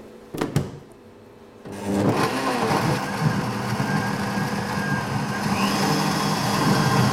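Blendtec Q-Series commercial blender starting up about two seconds in and then running steadily at high speed, pureeing apple chunks, spinach and water into a green smoothie. Two short knocks come just before it starts.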